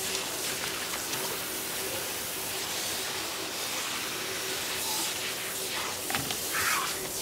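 Steady hiss of running water over a faint steady hum, with a brief high-pitched sound near the end.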